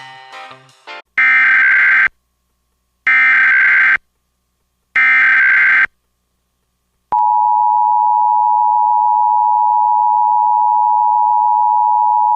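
Emergency Alert System SAME header: three one-second bursts of shrill data warble with a second of silence between each. About seven seconds in, the steady two-tone EAS attention signal (853 and 960 Hz) begins and holds. The last notes of elevator music end about a second in.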